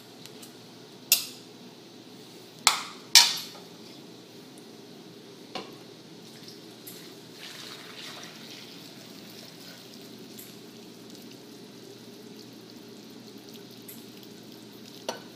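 Metal tongs clanking against the cookware as boiled chicken bones are lifted from a saucepan into a slow cooker: three sharp, ringing clanks in the first few seconds and a lighter one a little later. From about six seconds in, chicken broth is poured from the saucepan into the slow cooker's crock in a steady stream.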